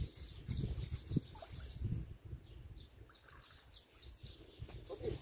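Small birds chirping in the background with short, scattered high chirps, over low rumbles and thumps in the first couple of seconds.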